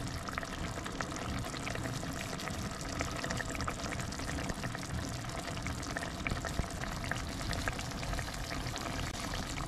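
Pot of fish paksiw with vinegar and tomatoes simmering on the stove: a steady bubbling hiss with many small pops and crackles.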